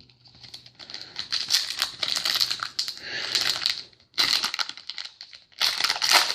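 Crinkling of a foil trading-card pack wrapper being handled and worked open, dense crackle in two long spells with a brief lull in between.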